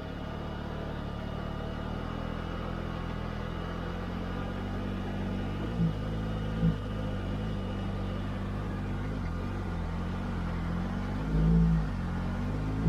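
Can-Am Maverick R side-by-side's turbocharged three-cylinder engine running steadily under way, briefly louder twice about six seconds in, with a short rise in revs near the end.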